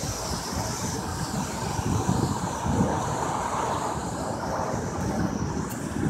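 Wind buffeting the microphone with road noise from a moving car, an uneven gusty rumble.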